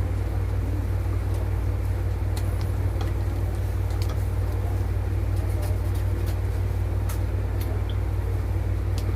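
Steady low rumble of a running road vehicle, with a few faint scattered clicks.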